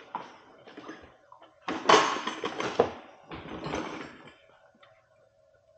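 Front fender and its thin metal fender stay being bent outward by hand, rattling and scraping in two noisy bursts about two and three and a half seconds in. The stay was bent in shipping and is being straightened away from the tyre.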